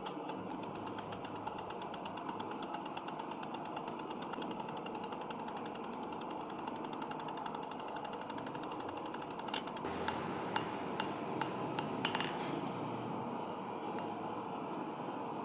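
A power hammer beating hot steel with rapid, even blows. From about ten seconds in come a handful of separate, louder, sharper metal strikes.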